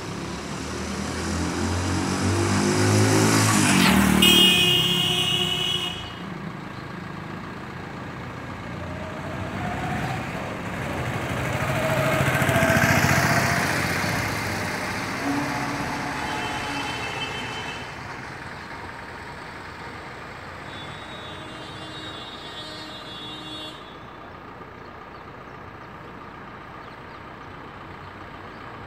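Road traffic passing: one vehicle swells up and goes by about four seconds in, another passes around twelve seconds, and vehicle horns toot several times, right after the first pass and again later on.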